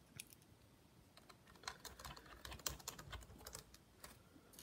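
Faint, irregular small clicks and ticks of a precision screwdriver driving tiny screws into a laptop motherboard, denser in the middle.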